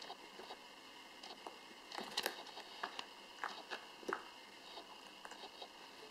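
A Pembroke Welsh corgi puppy bites and crunches an ice cube: irregular sharp crunches and clicks of teeth on ice, loudest in a cluster about two seconds in.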